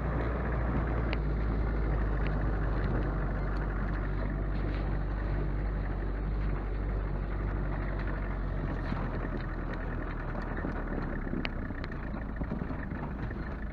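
Motor vehicle running steadily with a low drone, easing off slightly near the end, with a few faint clicks.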